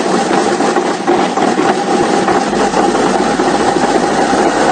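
Engine idling steadily just after being started, with a low hum joining about halfway through.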